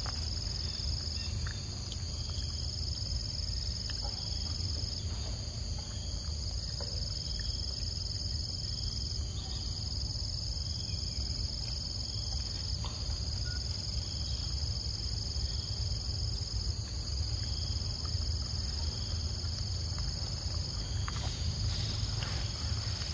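Steady high-pitched insect chorus, a continuous trill that shifts slightly every few seconds, over a low rumble.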